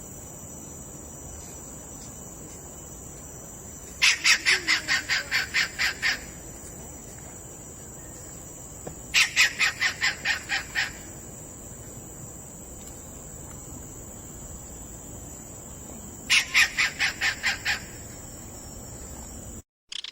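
Kingfisher calling: three bouts of about ten rapid repeated notes each, roughly two seconds long and several seconds apart, over a steady high-pitched whine.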